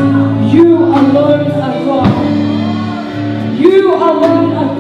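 Live worship song: a woman's lead vocal through a microphone, singing held notes over sustained keyboard chords, with a few drum and cymbal hits.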